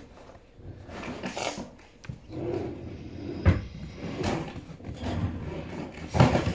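A drawer being opened and rummaged through, with things shifting inside and two sharp knocks, about three and a half seconds in and again near the end.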